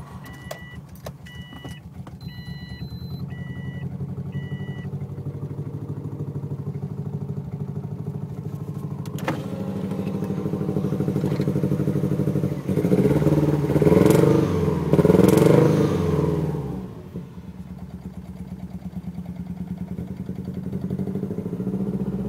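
Subaru WRX's EJ20 turbocharged flat-four running with a misfire on cylinders 1 and 3, blipped up in revs twice about two-thirds of the way through and then settling back. A chime beeps repeatedly for the first few seconds.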